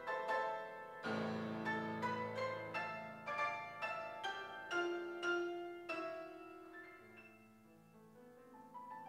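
Solo piano playing a slow, gentle piece: struck melody notes ring out over held low chords. About two-thirds of the way through, the notes thin out to a soft sustained chord, and a new note sounds near the end.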